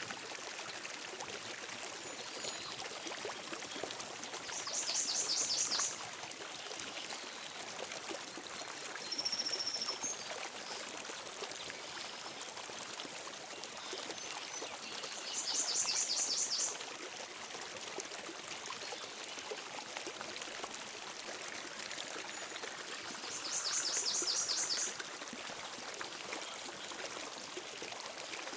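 A creek flows steadily with an even rushing sound. Three times, about ten seconds apart, a bird gives a short, high, rapid trill that is louder than the water.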